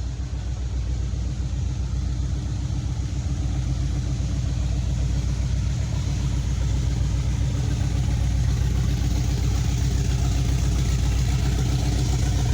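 Boat engines running as boats pass close by: a loud, steady low engine hum that grows slowly louder.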